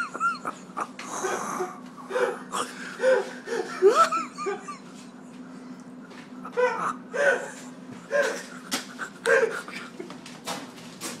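Laughter in short repeated bursts, some of them high squeaky giggles, with a few wheezy breaths between.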